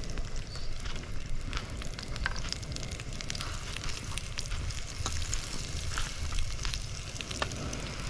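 Gözleme with salami slices frying in olive oil in a pan on a portable gas canister stove: a steady sizzle with small crackles, over a low steady rumble.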